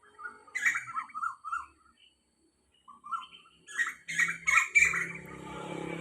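Asian koel calling: a run of short, shrill notes about half a second in, then a louder burst of notes past the middle.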